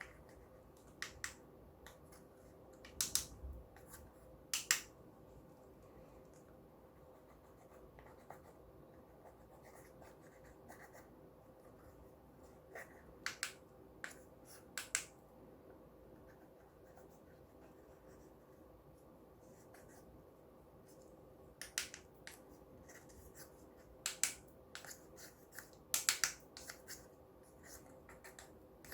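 Clear slime being pressed and worked by hand, giving scattered sharp clicking pops in small clusters with quiet gaps between.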